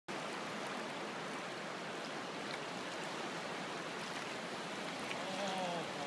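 River water rushing steadily over a riffle, with a faint voice briefly near the end.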